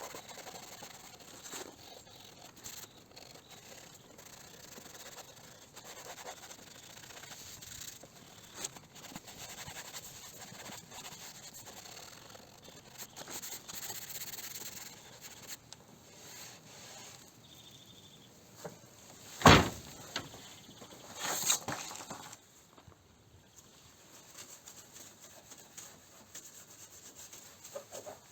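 Hand sanding of epoxy primer on a car body panel with fine sandpaper: an uneven rubbing scrape with small ticks. A single sharp knock stands out about two-thirds of the way through, followed shortly by a brief louder scrape.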